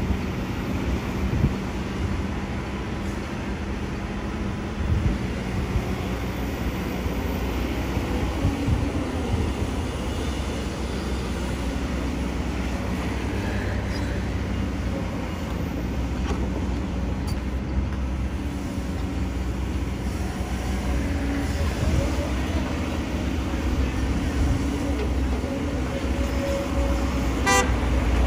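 Kobelco SK200 hydraulic excavator's diesel engine running steadily under load as it digs dirt, with passing road traffic and a few knocks early on. A brief horn toot near the end.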